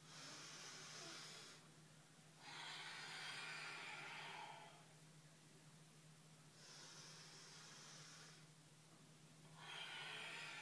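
A woman's slow, audible breaths, four of them about two seconds each with short pauses between, breathing in and out in time with cat-cow spine movements. A faint steady low hum runs underneath.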